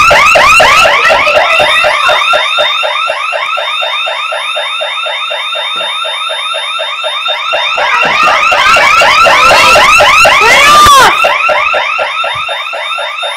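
Home security alarm siren sounding continuously in police panic mode, a loud fast warble of short pitched chirps repeating evenly. It grows louder from about eight seconds in and drops back after about eleven seconds.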